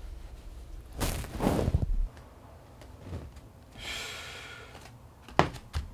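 Clothes and towels rustling as they are rummaged through in a cupboard, with a softer breathy hiss after it and two short knocks near the end.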